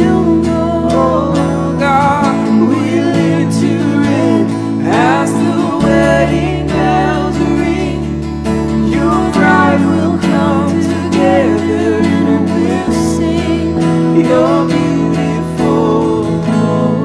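A worship song performed live: an acoustic guitar being strummed and a Nord stage piano holding chords that change every couple of seconds, with singing over them.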